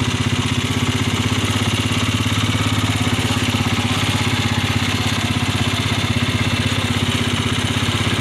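A vehicle's engine idling steadily, with an even rapid beat and no change in speed.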